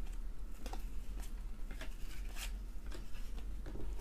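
Cardboard trading cards being flipped through by hand, each card sliding off the stack with a short, soft papery swish, roughly every half second.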